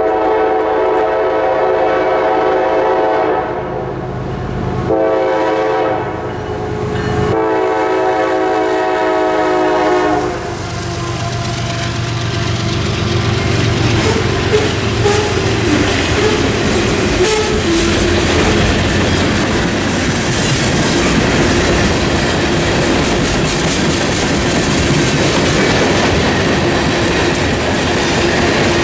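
Freight locomotive horn sounding at the crossing: a long blast, a short one, then a final long blast ending about ten seconds in. The train then rolls through, its freight cars' wheels clattering steadily over the rails.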